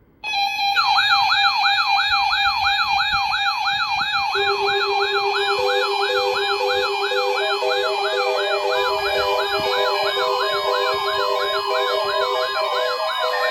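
Layered electronic emergency-alert siren tones starting abruptly: a rapid up-and-down siren sweep repeating about three times a second over steady tones and on-off beeps. A further steady low tone comes in about four seconds in and drops out near the end.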